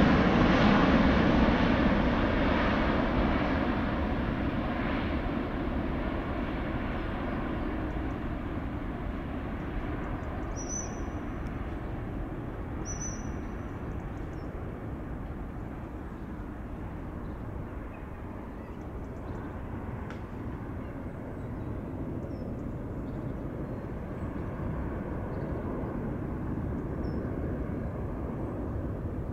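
Airbus A380-861 with four Engine Alliance GP7200 turbofans climbing away after take-off. Its jet noise is loud at first and fades steadily over the first fifteen seconds or so, leaving a lower, steady distant rumble. Two brief high chirps come about ten and thirteen seconds in.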